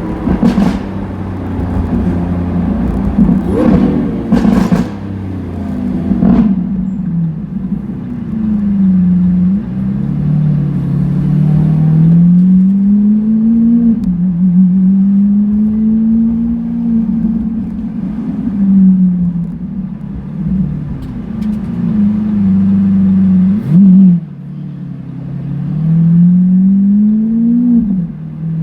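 Lamborghini Aventador S V12 with a Power Craft aftermarket exhaust, with sharp exhaust crackles and pops over the engine in the first several seconds. Then it accelerates repeatedly: the pitch climbs and drops suddenly at each upshift.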